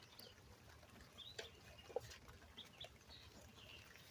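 Near silence with faint bird chirps in the background and a couple of light clicks.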